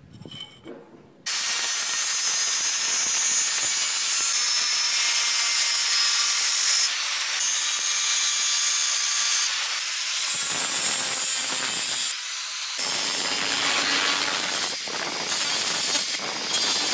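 Angle grinder with a thin cut-off disc cutting through aluminium channel: a harsh, high-pitched metal-cutting screech that starts abruptly about a second in, with a short drop in level around twelve seconds in before cutting resumes.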